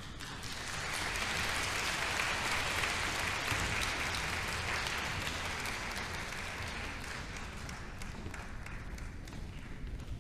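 Audience applauding, building over the first couple of seconds and then slowly thinning out, with single claps standing out near the end.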